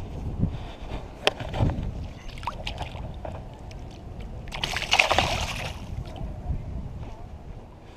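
Splashing at the water's surface about five seconds in, as a peacock bass is lowered into the water by hand and released. Before it come a low rumble and a few sharp clicks.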